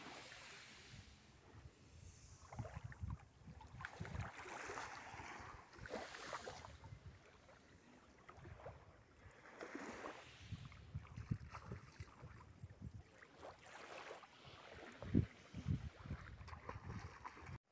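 Wind gusting across the phone's microphone in uneven rumbling bursts, over small sea waves washing at the shoreline. A brief sharp bump stands out about fifteen seconds in.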